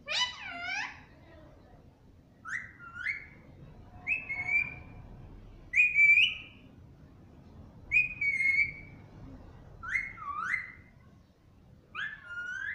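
Indian ringneck parrot (rose-ringed parakeet) whistling: seven short, loud whistled phrases about every two seconds, each with a quick sliding pitch.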